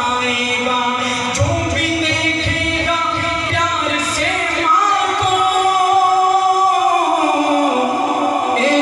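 A man singing an Urdu nazm solo into a microphone, drawing out long held notes in a melismatic recitation style. From about halfway one long note is held and then slides down in pitch near the end.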